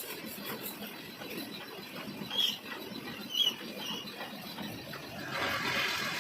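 Metal lathe cutting a coarse 3 TPI thread in a cast iron nut, the tool scraping on the iron. Two short high-pitched chirps come about two and a half and three and a half seconds in, and a louder, rougher cutting noise sets in about five seconds in.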